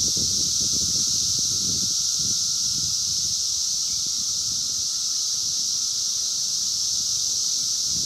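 Chorus of Brood X 17-year periodical cicadas (Magicicada), a loud, steady, high-pitched drone that never lets up, with an uneven low rumble underneath.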